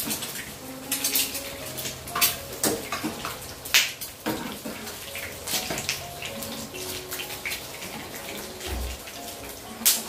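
Hot oil sizzling in a pan as food fries, with irregular sharp spitting pops throughout.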